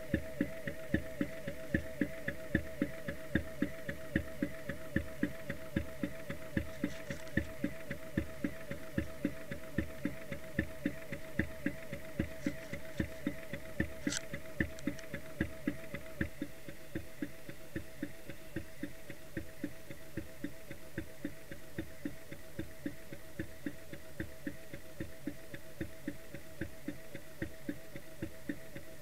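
Steady mechanical ticking, about two ticks a second, over a wavering hum, heard underwater through the camera's housing.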